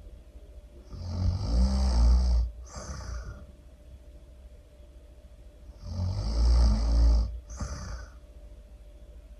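Loud snoring, twice, about five seconds apart. Each snore is a rattling inhale of about a second and a half, followed by a short breathy exhale.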